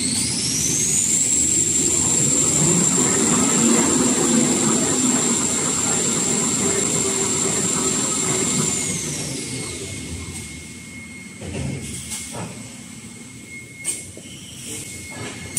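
1850 mm kitchen-towel and toilet-paper rewinding machine running with its embossing rollers turning. A high whine rises within the first second and holds steady over a low rumble, then falls away about ten seconds in as the machine winds down, leaving a few knocks.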